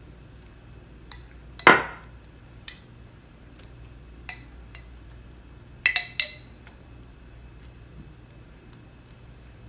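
A spoon clinking against a glass baking dish as tomato sauce is spooned onto eggplant slices: scattered sharp clinks, the loudest a little under two seconds in and a close pair near six seconds, over a low steady hum.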